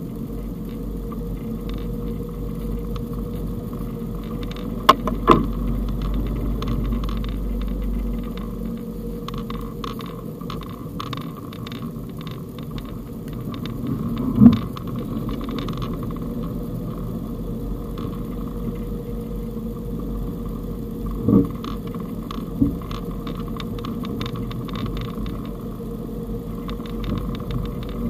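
Fiat Panda Cross driving on a snowy road, heard from inside the cabin: steady engine and tyre rumble. A few short sharp knocks from bumps come through, a pair about five seconds in, the loudest near the middle, and two more later on.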